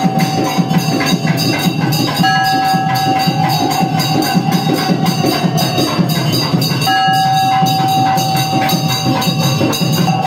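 Loud festival band music: fast, steady drumming under a reedy wind instrument that holds long high notes, one after another with short breaks between.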